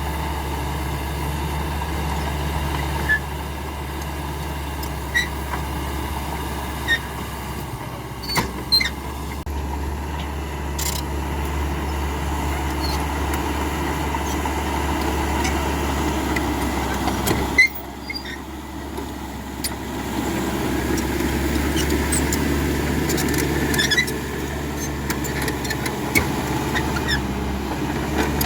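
CAT D5K XL bulldozer's diesel engine running steadily, with short squeaks and clanks from the machine now and then. A loud knock comes about two-thirds of the way through, and the engine sound dips for a couple of seconds after it.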